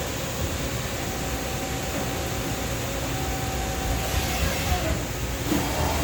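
Doosan Puma TT1800SY CNC turning center running under power: a steady mechanical hum and hiss with a faint whine, and a few short clatters in the last two seconds.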